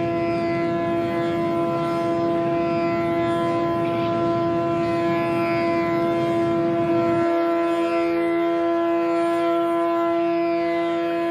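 Background Indian classical music holding one steady drone note. Under it runs the low rumble of a jet airliner's cabin, which cuts off abruptly about seven seconds in.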